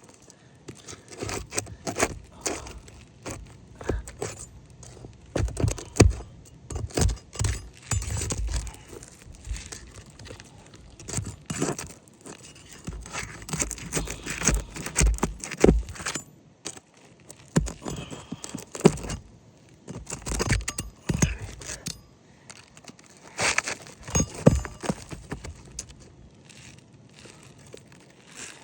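Metal roof snake being worked under asphalt shingles: irregular clicking, knocking and scraping of metal on shingle, with short quieter pauses.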